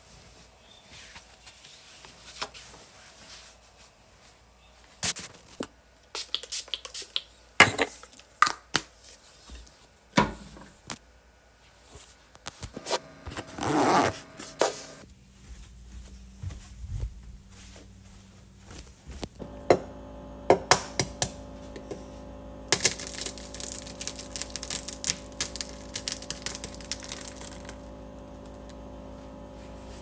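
Rustling and handling noises with scattered knocks and thumps, starting with bedding being moved and shaken as a bed is made. A longer burst of rustling comes about halfway through, and after that a steady hum runs underneath.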